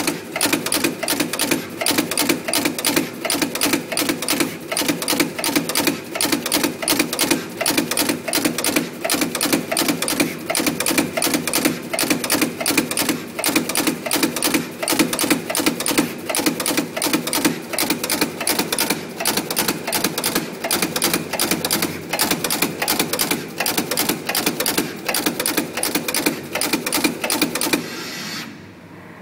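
Through-hole auto insertion machine clicking steadily as its head inserts components into a PCB panel, about three strokes a second, with a short thump on each stroke. The clicking stops near the end, leaving only the machine's quieter hum.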